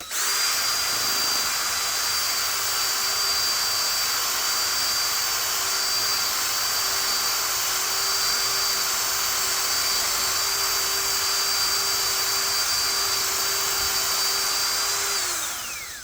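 Electric drill spinning a door knob held in its chuck, running at a steady speed with a constant whine while a Scotch-Brite pad scours the metal with a steady hiss; the motor winds down near the end.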